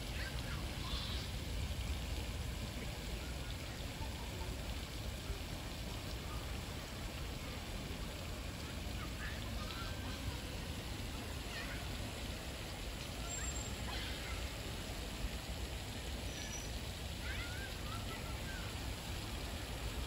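Steady outdoor ambience by a pond, a hiss with a low rumble, with a few short, faint calls scattered through it.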